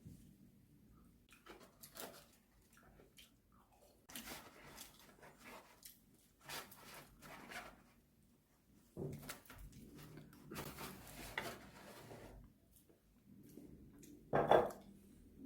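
Eating sounds: irregular chewing and lip-smacking on fried chicken, with one louder burst near the end.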